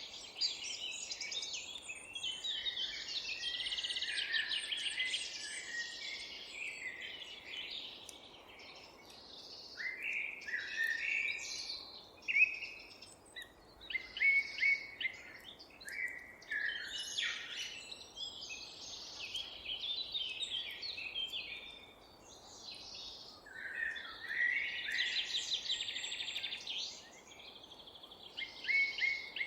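Several songbirds singing at once, overlapping chirps, warbles and fast trills, with a few brief lulls, over a faint steady background hiss.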